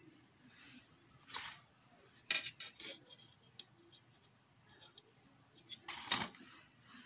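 A clear plastic set square handled on paper: a brief swish, then a clatter of light clicks as it is laid down, and a louder swish near the end as it is slid off the sheet.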